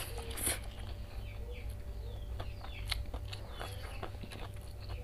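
Instant noodles slurped into the mouth about half a second in, then chewing with wet mouth clicks and smacks. Small birds chirp faintly in the background over a steady low hum.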